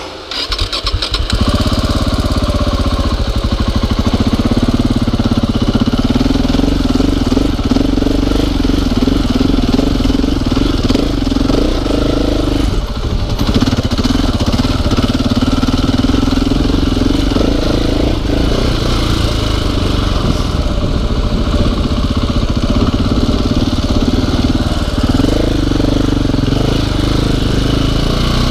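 2015 KTM 690 Enduro R's single-cylinder engine starting up at the very beginning, then running loud and steady under throttle as the motorcycle is ridden, with a short throttle-off about halfway through.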